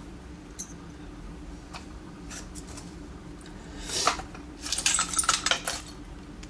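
Small metal tools and lock parts being rummaged through by hand, clicking and clinking: a few faint clicks, a brief rustle about four seconds in, then a quick run of clinks near the end.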